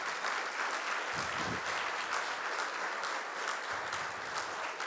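Audience applauding, with many hands clapping at a steady level.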